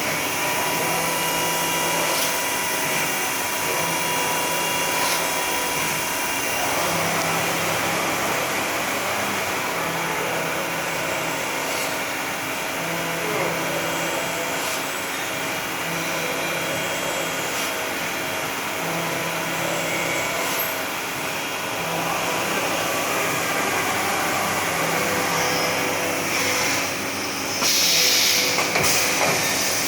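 CNC vertical machining center running: a steady machine whine and hiss, with a low pulse repeating every couple of seconds. Louder bursts of hiss come near the end.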